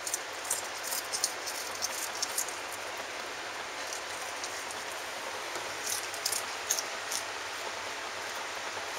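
A cat chewing a raw pea pod: short, crisp crunches in bursts, over a steady hiss.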